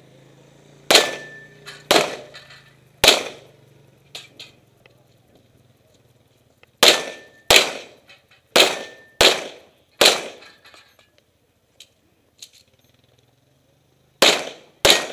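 Pistol shots from a USPSA Open-division competition pistol fired at targets, ten sharp cracks in all. Three come about a second apart, then a string of five between about 7 and 10 seconds in, then a quick pair near the end.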